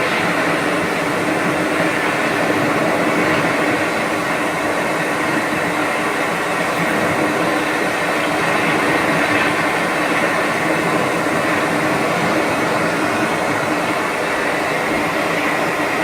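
Hatch sound machine playing its hum sound: a steady, unchanging rushing hum with a few faint steady tones in it.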